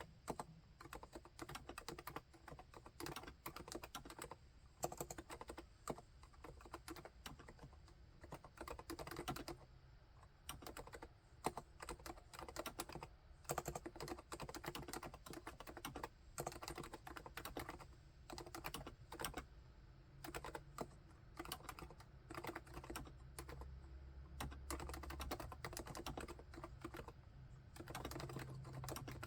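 Continuous typing on a full-size Realforce keyboard with silenced Topre electrostatic-capacitive switches and HiPro-profile keycaps: a fast, irregular stream of soft, muted keystrokes.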